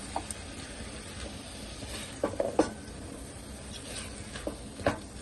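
Spoon or spatula knocking and scraping against a kadhai while potatoes and chicken keema are stirred: a few scattered clinks, a quick cluster about halfway and another near the end, over a steady low hiss.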